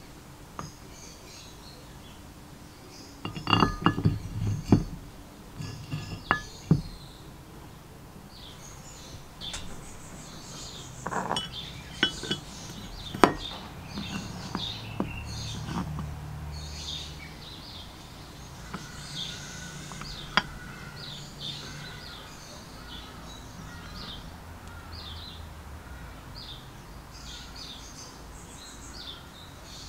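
Metal parts of a forge blower's gearbox (cast housing halves, gears and a steel shaft) clinking and knocking as they are handled and set down, in clusters a few seconds in and again around the middle, with one sharp clink later. Birds chirp in the background throughout.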